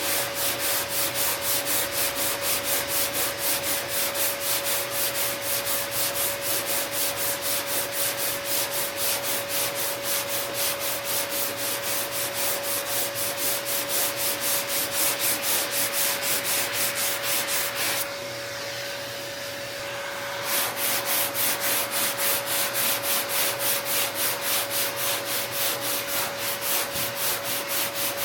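Sandpaper on a hand sanding block rubbing back and forth over a car's steel front fender in steady, even strokes about three a second, stopping briefly for a couple of seconds about two-thirds of the way in. This is block sanding to level the panel. A faint steady tone runs underneath.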